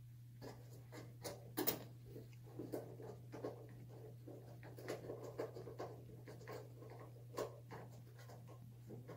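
Hand screwdriver working on a shower panel: irregular small clicks and scrapes, with a louder knock a little under two seconds in, over a steady low hum.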